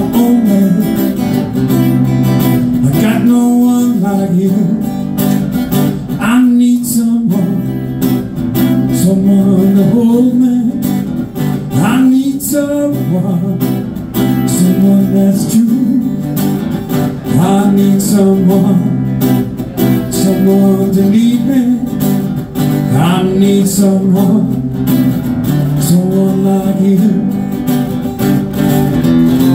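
Live blues on a PRS acoustic guitar, strummed and picked steadily, with a man's voice singing over it at times.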